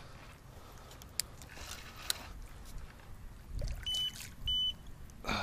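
Electronic bite alarm on a fishing rod sounding two short, high beeps about half a second apart, signalling a bite. Faint clicks come before it.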